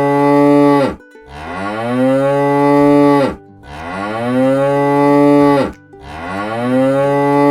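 Cow mooing: a series of long moos of about two seconds each, one after another with short pauses between them. Each moo rises at the start, holds, then drops away at the end.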